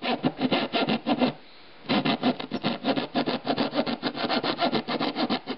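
Hand sanding a dried shellac finish on a wooden clock case with 320-grit sandpaper: quick back-and-forth rubbing strokes, about six a second, with a short pause about a second and a half in.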